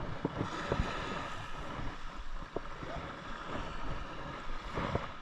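Steady rush of wind and surf on the microphone, with scattered light clicks and taps from hands handling a spinning rod and reel.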